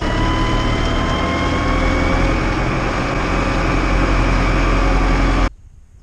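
Tractor engine running steadily, heard from inside the cab, with a whine that rises slightly in pitch over the first couple of seconds. It cuts off suddenly about five and a half seconds in.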